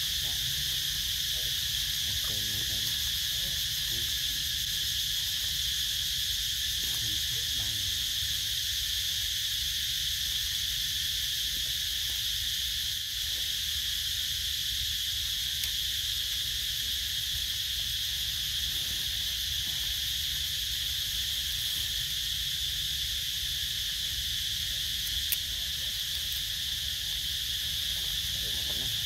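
Steady, unbroken drone of an insect chorus holding a high pitch, with a low rumble underneath. A single sharp click sounds near the end.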